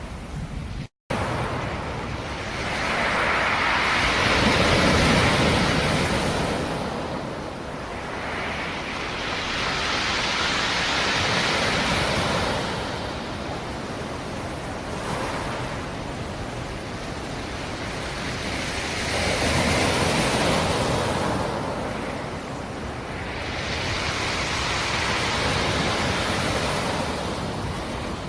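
Black Sea surf: waves rolling in and breaking on the shore, the wash swelling and ebbing about four times. There is a very brief dropout in the sound about a second in.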